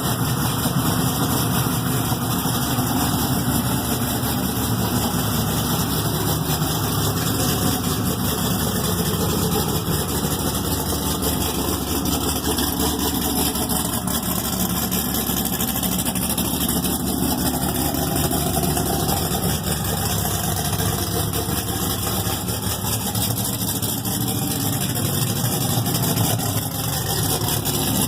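LS3 6.2-litre V8 idling steadily on its first run after a full rebuild.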